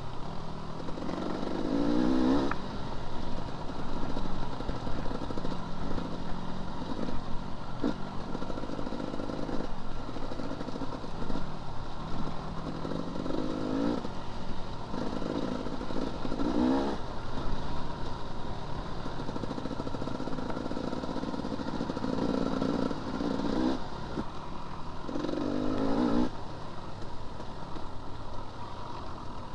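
Enduro dirt bike engine on the move, revving up and dropping back every few seconds as the throttle is opened and closed, with the odd knock and clatter from the bike over rough ground.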